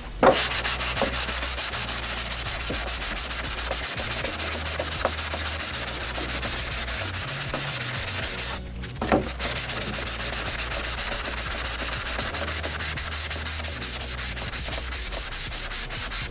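Dry hand-sanding of a primered Suzuki Hayabusa fairing panel with a sponge sanding block: quick, even back-and-forth rasping strokes, about five a second, with a short pause about eight and a half seconds in.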